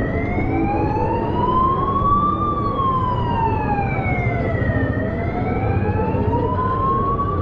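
Emergency siren wailing slowly up and down, rising for a little over two seconds and falling for about as long, then rising again near the end. Beneath it runs the steady noise of a busy street crowd.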